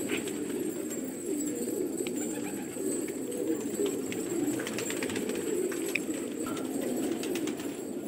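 A flock of domestic pigeons cooing together in a continuous low murmur, with a few faint clicks scattered through it.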